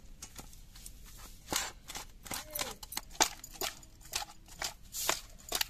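Hands squishing and turning raw catla fish pieces coated in spice powder in a steel bowl: irregular wet squelches and sharp clicks against the metal.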